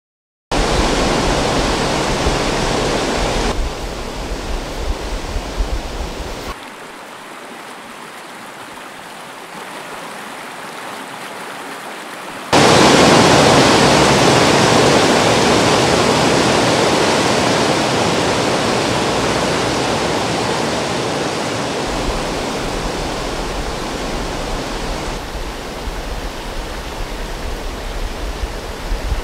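Rushing water of a waterfall and rapids, a steady noise with no tones in it. It changes level abruptly several times: thinner and quieter from about six to twelve seconds in, then jumping back to its loudest.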